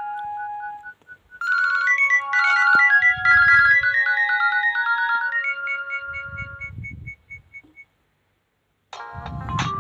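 Nokia 2680 slide mobile phone playing built-in polyphonic ringtone melodies. One tune ends about a second in. A new one with a low beat plays and fades out near eight seconds, and after a second of silence another tune starts near the end.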